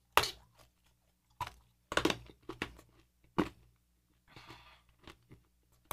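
Hard chilli toffee being chewed, cracking and crunching between the teeth in a dozen or so irregular, sharp crunches.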